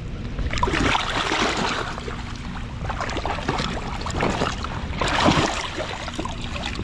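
Fast-flowing river water sloshing and splashing around a person wading in it, with louder splashes about a second in and again a little after five seconds.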